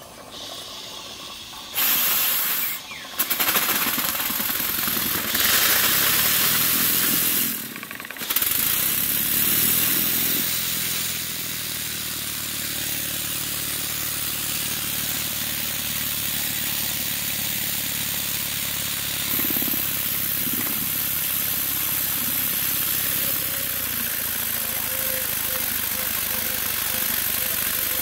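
Cotswold Heritage Perseus model steam engine running fast on live steam, with a loud steady hiss of escaping and exhaust steam over its rapid beat. The hiss starts suddenly about two seconds in, cuts out briefly twice over the next few seconds, then runs on evenly.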